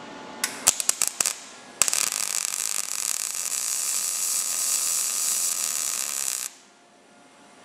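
MIG welding arc on thin sheet-steel panel: a few short sputtering bursts as the arc starts, then a steady crackle for about five seconds while a bead is run onto the ends of earlier stitch welds, cutting off suddenly as the trigger is released.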